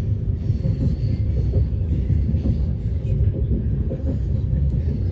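Steady low rumble of a moving train running on the rails, heard from inside the carriage.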